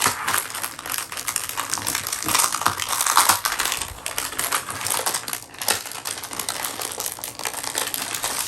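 Paper and packaging being handled: a dense run of rustling and small crackles as a pack of craft papers is opened and the sheets taken out, a little louder about two to three seconds in.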